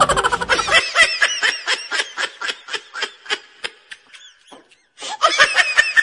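A person laughing hard in quick repeated bursts, about three a second, that die away. After a short pause near the end a fresh, loud run of laughter starts.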